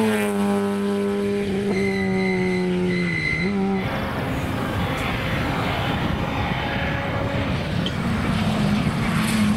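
A Citroën Saxo rally car's engine driving away, its note falling steadily, with a brief dip at a gear change about three seconds in. After a sudden cut, a Citroën C3 R5 rally car approaches with tyres hissing on the wet road, its engine growing louder near the end.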